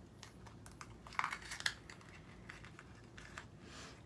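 Faint clicks and rustles of a small white accessory box being opened by hand, with two brief, slightly louder scrapes a little over a second in.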